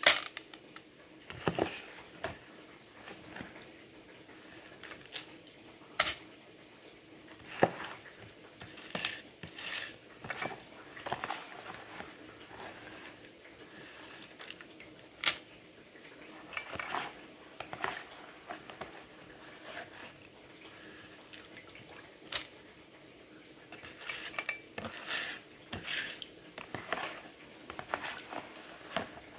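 Metal slotted spoon scooping soaked rice out of a plastic bucket into a metal pot: scattered clinks and scrapes of the spoon against the bucket and pot, with wet rice dropping into the pot. The loudest clink comes right at the start.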